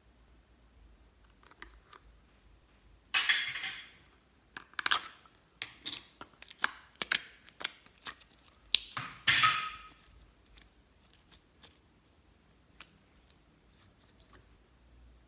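Close-up handling of small objects and slime: a brief crinkly rustle about three seconds in, then a run of sharp clicks and crackles with a second rustle near nine seconds, thinning to scattered clicks.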